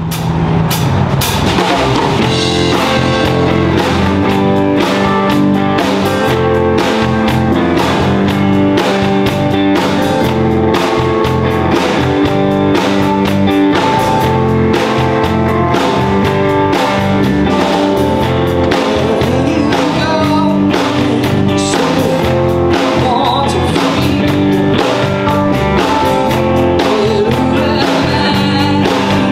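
Rock music with guitar, a steady drum beat and singing.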